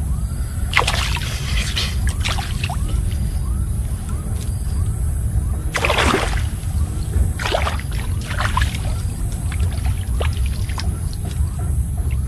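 Water splashing and dripping in short bursts as a wet gill net is handled and untangled in shallow field water, with the strongest splash about halfway through. A steady low rumble runs underneath.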